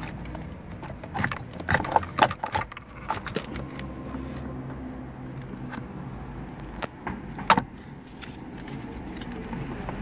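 Plastic clicks and rattles from hands handling a car's steering-column combination switch and clock spring housing. A cluster of clicks comes in the first few seconds and one sharp click about seven and a half seconds in, over a low steady hum.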